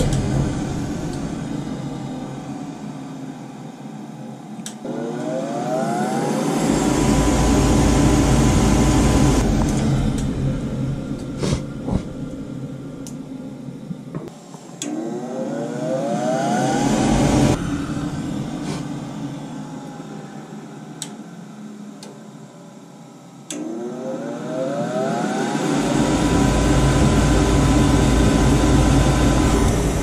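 Goodman furnace's draft inducer motor cycling on and off: it winds down, then spins up with a rising whine that levels off, three times about ten seconds apart, with a few light clicks in between. The repeated start-and-stop is what the technician takes for a bad control board.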